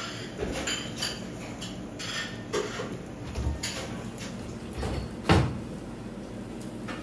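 Scattered knocks and clatter, like utensils and dishes being handled during food preparation, with one much louder thump about five seconds in.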